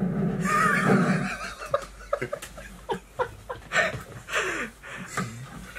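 A horse-like whinny, a quavering high-pitched neigh about a second long near the start, followed by several short sliding yelps.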